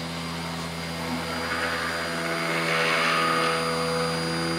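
CNC router's 48 V DC spindle running with a 1/8-inch bit milling a pocket in aspen: a steady motor hum and whine, with the rasp of the bit cutting wood swelling up about two seconds in and easing off near the end.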